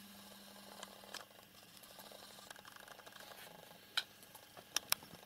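Faint rustling and small ticks of a cat moving about on papers piled on a computer tower, with one sharp click about four seconds in and two quick sharp clicks near the end.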